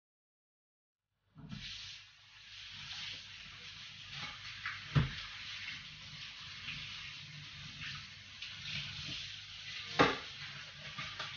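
Tap water running into a kitchen sink while dishes are washed, starting about a second in, with two sharp knocks of crockery or utensils against the sink, about halfway through and near the end.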